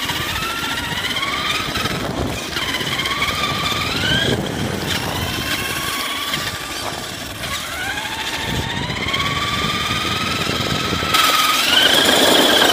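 Electric RC monster truck's motor and gears whining as it drives on tarmac, the whine rising in pitch each time it speeds up, several times over, with rough tyre and road noise beneath. Near the end the noise gets louder and rougher.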